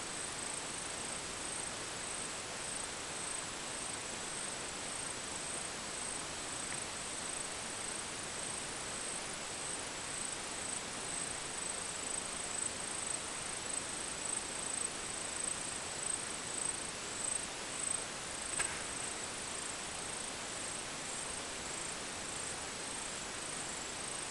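An insect chirping in a high, even rhythm, a little over two pulses a second, over a steady hiss. There is one brief click late on.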